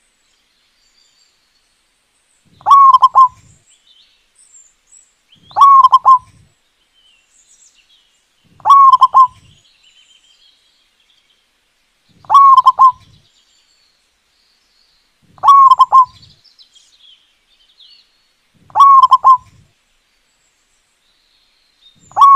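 Zebra dove (perkutut) cooing: a short, loud phrase repeated at an even pace about every three seconds, seven times.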